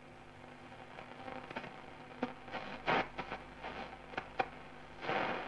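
Shortwave static from a Schaub-Lorenz Goldy 58 tube radio's loudspeaker as it is tuned: a hiss with sharp crackles and a couple of louder noise bursts. Only a very faint signal comes through, a sign of very poor sensitivity.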